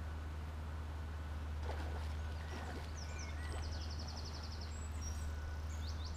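A small songbird singing twice: a few quick high notes running into a fast, even trill, about three seconds in and again near the end, over a steady low rumble.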